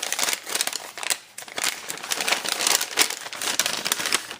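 Gift wrapping crinkling and rustling as items are pulled out of a packed box, a steady run of irregular crackles.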